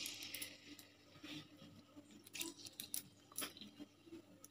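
Sugar sprinkled into hot oil in a kadhai sizzles with a short hiss that fades within the first half second. Faint sizzling follows, with a few small crackles and clicks, as the sugar starts to brown to colour the curry.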